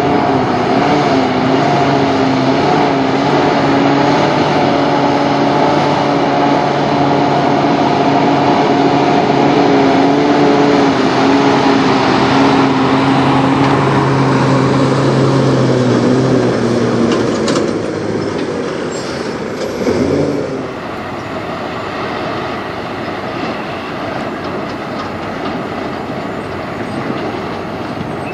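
Freightliner Cascadia semi truck with a refrigerated trailer rolling slowly past at low speed: a steady engine drone with a humming tone, which fades as the truck moves off a little past halfway. A brief thump comes about two-thirds of the way through.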